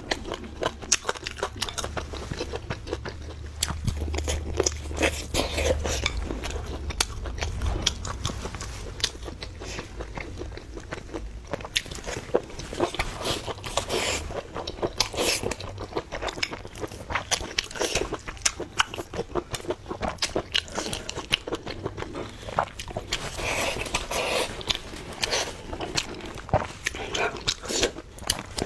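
A person eating close to the microphone: continuous chewing and biting with many quick, irregular wet mouth clicks and smacks.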